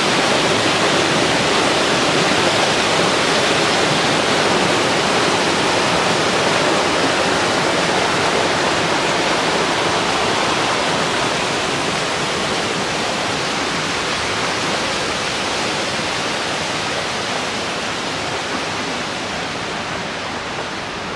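Small stream cascading over boulders in a steady rush of water that grows gradually fainter toward the end.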